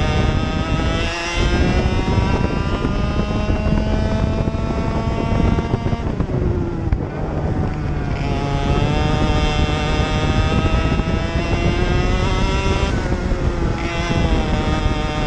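Racing kart engine at full throttle, heard onboard, its pitch climbing steadily down the straight, then falling away about six seconds in as the driver lifts off for a corner, and climbing again with another brief lift near the end.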